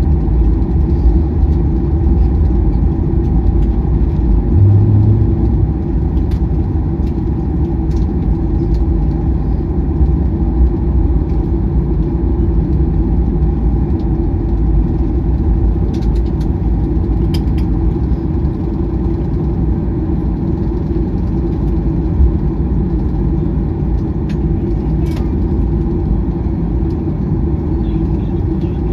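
Cabin noise of a Boeing 737-800 taxiing after landing: the steady rumble and hum of its CFM56-7B engines at idle, heard from a window seat over the wing, with a few small clicks and rattles.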